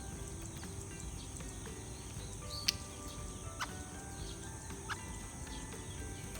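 A few short, high bird chirps and sharp clicks over a steady background hiss, with faint held tones beneath.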